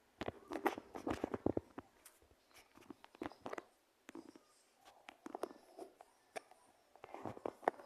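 Irregular clicks and knocks of things being handled, a quick cluster in the first second and a half and scattered single knocks after.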